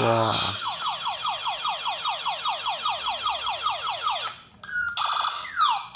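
Battery-powered light-and-sound toy pistol playing its electronic firing effect: a rapid string of falling "pew" sweeps, about six a second, which stops after about four seconds. Near the end a different electronic zapping sound with steeper falling sweeps starts.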